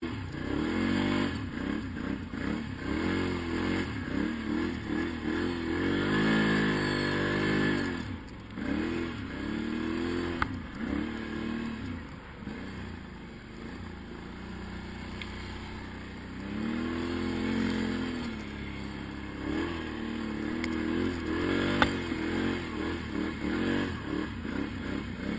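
Quad bike engine being ridden, revving up and falling back over and over, the pitch swinging every second or two. Two sharp knocks, one about ten seconds in and another about twenty-two seconds in.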